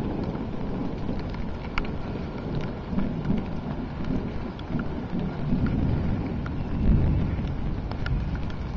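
Rain falling steadily, with scattered sharp ticks of drops landing close by over a low rumble.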